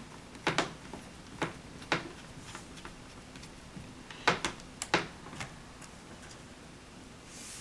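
Scattered sharp clicks and taps of small screws and a screwdriver worked against a laptop's plastic screen bezel, in small clusters through the first half, the loudest about four seconds in.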